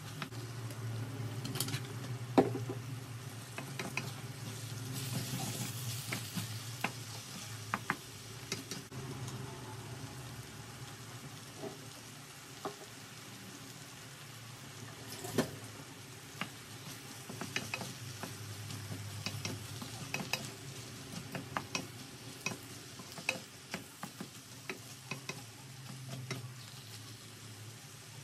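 Eggplant and bean seeds frying with a steady sizzle in a wok while a wooden spatula stirs them, knocking and scraping against the pan at irregular moments.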